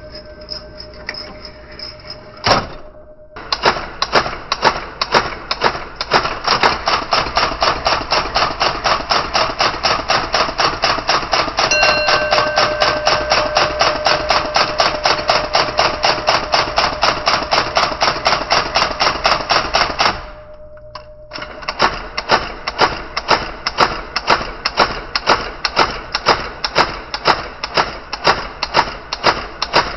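IBM Selectric III electric typewriter running and typing in a fast, very even rhythm of about three to four strokes a second, its motor humming underneath. The first few seconds hold only the hum and a single knock; typing starts about three seconds in, pauses briefly about twenty seconds in, then resumes.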